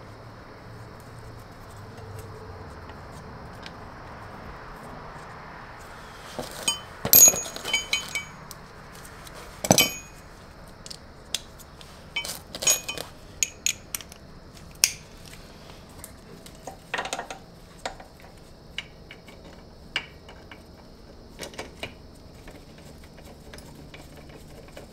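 Metal parts clinking and tapping as an ATV brake caliper and its steel mounting bolts and washers are handled and fitted onto the wheel hub: short, sharp, ringing clinks at irregular intervals, loudest in a cluster about seven seconds in and again near ten seconds.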